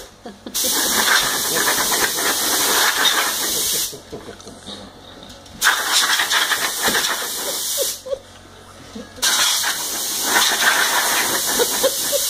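Compressed air hissing from a blow gun on a coiled compressor air hose, let off in three long blasts of a few seconds each with short pauses between.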